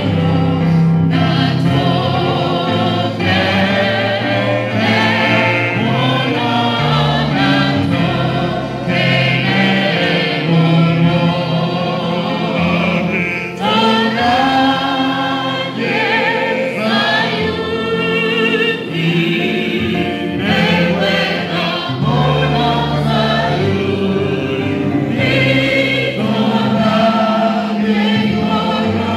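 Gospel hymn sung in Kikuyu by a man and a woman into a microphone, with other voices singing along as a choir.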